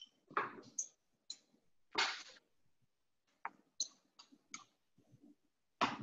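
Scattered clicks and light clinks of small kitchen dishes and utensils being handled on a counter while seasonings are measured out. There are about eight separate taps, some with a short glassy ring, and the loudest comes about two seconds in.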